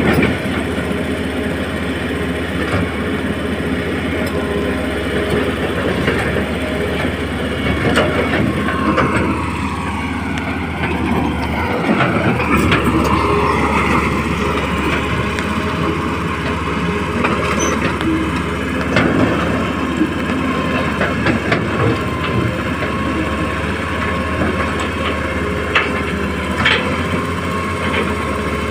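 Huina 1535 radio-controlled excavator's small electric motors and gearboxes whining as it works, the pitch sliding down and back up in the middle. A few sharp clicks near the end.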